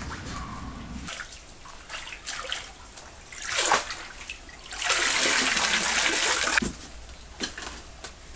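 Water splashing and sloshing as green vegetables are washed in a bamboo basket in a shallow stream. About five seconds in there is a louder, steady rush of water that lasts nearly two seconds and stops abruptly.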